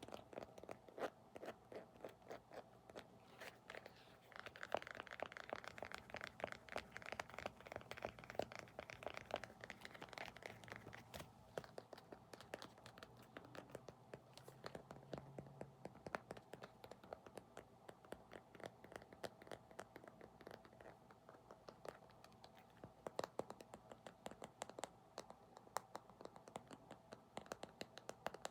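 ASMR tapping and scratching close to the microphone: many rapid light clicks, with a scratchier stretch from about 4 to 11 seconds in.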